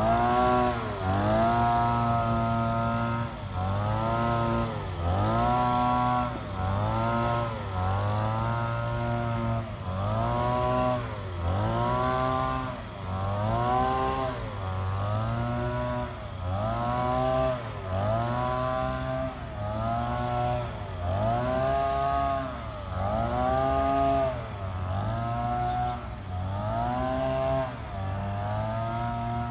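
Engine of a powered cutting machine working under repeated load: its pitch sags and recovers in a regular cycle about every two seconds, as the cutter bites into wood and frees again.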